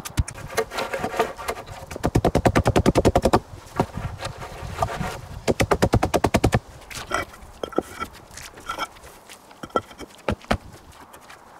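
Quick runs of dull thuds as the end of a wooden log is pounded down to tamp a bed of sand. In the last few seconds these give way to scattered single knocks and short clinks as concrete paving slabs are set down against each other.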